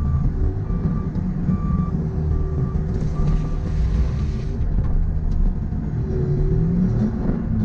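Compact track loader's diesel engine running under load, with its backup alarm beeping about every three-quarters of a second for the first few seconds while it reverses. A burst of hiss comes about three seconds in, and the engine climbs in pitch near the end.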